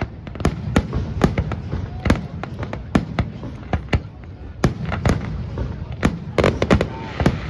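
Fireworks display: many sharp bangs going off in quick, irregular succession, several a second, over a low rumble.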